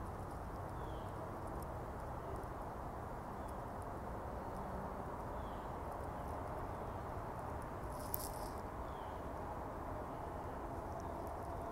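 Steady low outdoor background rumble, with faint short chirps every second or two and a single sharp click about eight seconds in.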